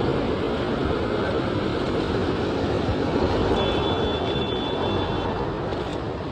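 Steady loud road noise of passing traffic mixed with wind rumbling on the microphone. A thin high squeal sounds briefly in the middle.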